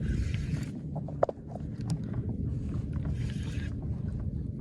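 Fishing boat's engine running with a steady low rumble, with two brief hissing rushes and a single sharp click about a second in.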